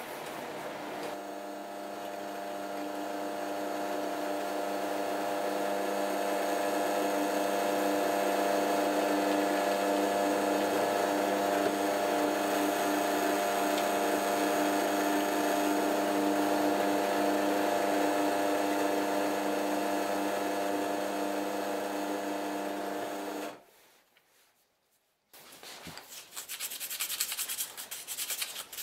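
Drill press motor running steadily for about twenty seconds, then cutting off suddenly. After a short quiet spell, a small ash piece is rubbed with sandpaper by hand near the end.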